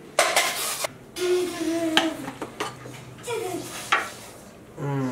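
Utensils scraping and clinking against dishes and pots as food is dished out, with a few brief voice sounds in between.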